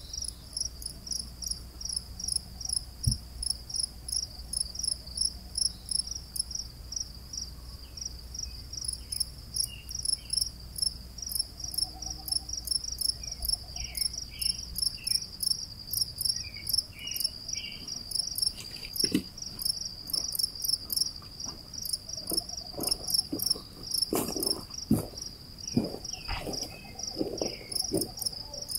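Crickets chirping in a fast, steady rhythm, about three chirps a second. In the second half a scatter of low knocks and thumps comes in under the chirping.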